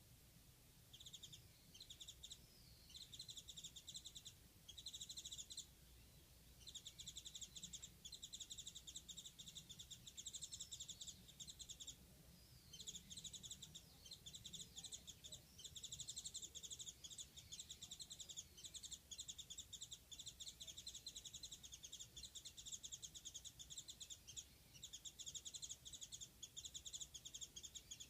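Japanese white-eye singing: long, rapid, high-pitched twittering phrases that follow one another with only short breaks.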